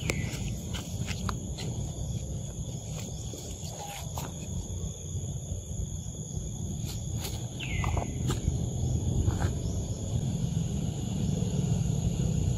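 Forest ambience: a steady high insect drone over a low rumble, with scattered faint clicks. Two short falling squeaks stand out, one right at the start and one about two-thirds of the way in.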